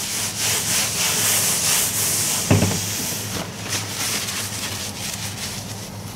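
Shop rag rubbing briskly over a motorcycle fork lower leg as it is wiped clean, then a single knock about two and a half seconds in as the leg is set down on the workbench.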